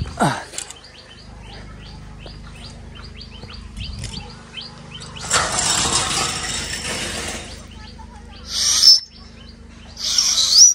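Birds chirping steadily, then a rush of noise for about two seconds midway. Near the end come two short, loud, high whistles, blown through a fist held to the lips.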